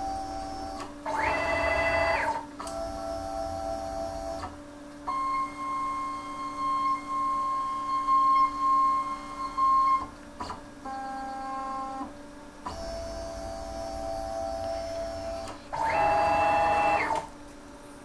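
Stepper motors of a CNC router driving its axes through an automatic tool change. They make a string of moves, each a steady electronic whine at its own pitch, split by short pauses and clicks. From about five seconds in, one long slow move holds a single pitch and ends in a click, as the new tool is lowered onto the fixed tool-length probe.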